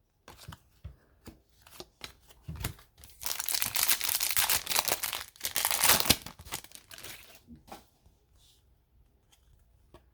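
A foil trading-card pack wrapper being torn open and crinkled, a dense crackling from about three seconds in to about seven, with lighter handling clicks around it.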